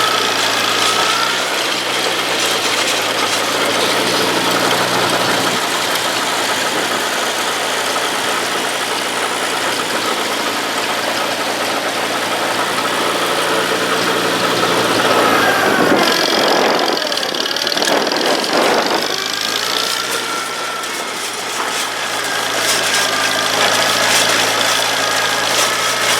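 International Harvester Cub four-cylinder flathead engine running steadily as the baler's power unit. About two-thirds of the way through its speed sags, then picks back up.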